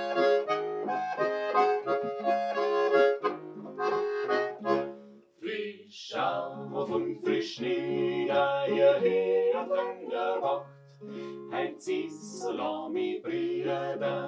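Diatonic button accordion and acoustic guitar play the opening of an Alpine folk carol. After a short break about five seconds in, a four-part family vocal group of women's and men's voices starts singing in German over the accordion and guitar.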